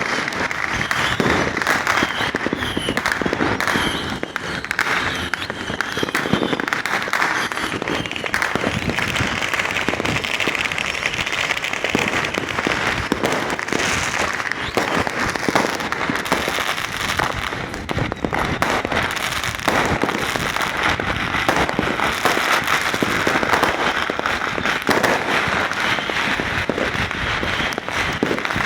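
Many fireworks and firecrackers going off at once: a dense, unbroken run of overlapping bangs and crackling.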